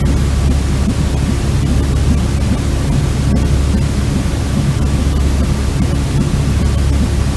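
Steady white-noise sleep sound for calming a colicky baby: an even, unchanging rush weighted toward the low end.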